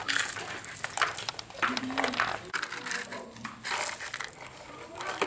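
Plastic toy excavator scooping through loose gravel: stones crunching and scraping in short, irregular scrapes about once a second.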